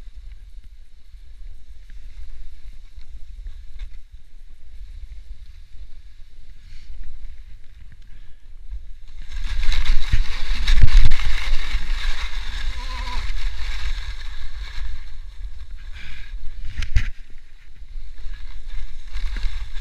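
Wind rumbling on the helmet-mounted camera's microphone, then from about nine seconds in a snowboard sliding down a steep couloir, its edge scraping and hissing over wind-crusted snow, with a sharp knock near the end.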